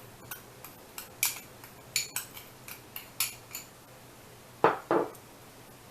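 Metal spoon clinking against kitchenware: a run of light, quick clinks and scrapes, then two louder knocks close together near the end.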